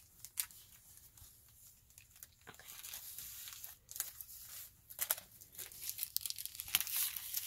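Comic books being handled and shuffled on a table: scattered short rustles and crinkles of their paper and covers, a few sharper ones around the middle and near the end.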